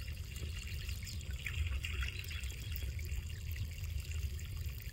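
Outdoor ambience: a steady low rumble with faint hiss, and a few faint high bird chirps about one and a half to two seconds in.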